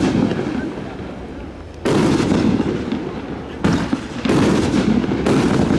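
Fireworks display: aerial shells bursting in quick succession, about four loud bangs in the second half, each followed by a long rumbling, crackling tail that runs into the next.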